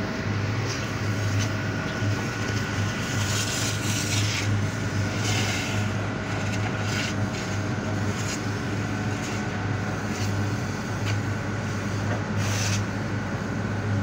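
Sewage vacuum truck's engine and suction pump running steadily, its thick suction hose drawing grease sludge from the septic tank, with a few short swells of hissing noise over the low hum.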